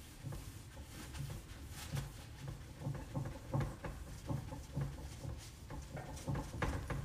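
A cloth wiping marker off a whiteboard in back-and-forth strokes: rhythmic rubbing at about two strokes a second.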